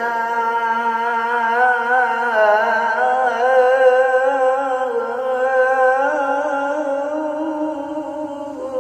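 A man singing one long, drawn-out melismatic note in Arabic devotional chant style, the vowel held for many seconds while the pitch wavers and shifts in small steps.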